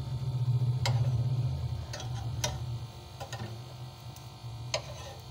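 Steel kitchen tongs clicking and tapping against a non-stick frying pan as slices of bread are turned over: a handful of sharp, separate clicks over a steady low hum.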